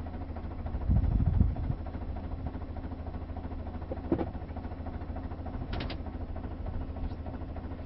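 A vehicle engine idling steadily with an even low hum, and a louder low rumble for about a second near the start. A few faint clicks come later.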